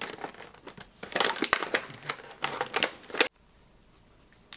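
Close handling noise: a rapid run of clicks and crinkles from something being worked in the hands, which cuts off abruptly about three seconds in.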